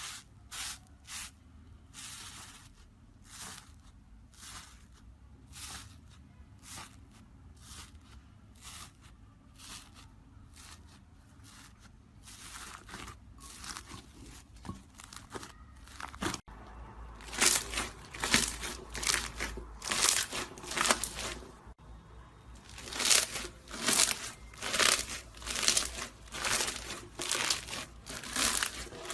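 Slime being squeezed and stretched by hand, giving a run of short crackling, crinkly pops. The pops are faint and spaced out at first, then louder and quicker from a little past halfway.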